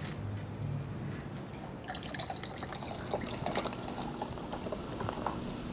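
Beer poured from a bottle into a glass, with the glass filling.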